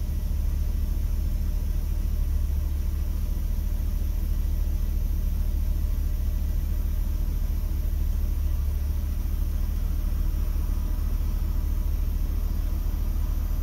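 Two Skar Audio VXF12 12-inch subwoofers in a ported box play a steady low bass test tone at high power. A Taramps MD 8000.1 amplifier drives them at about 90 volts AC output, with the gain set just at the edge of clipping.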